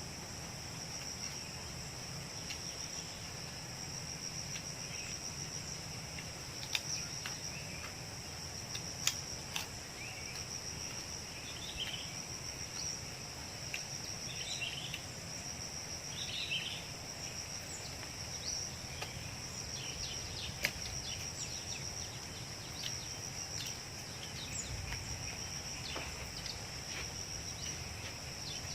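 Steady high-pitched trilling of insects in an outdoor chorus, with a few short chirpy calls in the middle and scattered sharp clicks.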